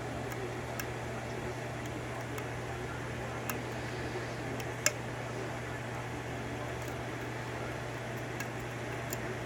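Faint, scattered clicks of a lock pick and tension tool working the pins of a 5-pin rim cylinder, with one sharper tick about five seconds in, over a steady low hum.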